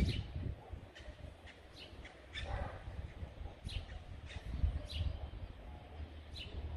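Outdoor ambience: short bird chirps every second or so over a low steady rumble.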